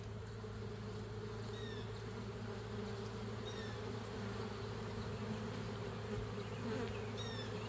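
A swarm of honeybees humming in a steady drone around an opened hive during a frame inspection.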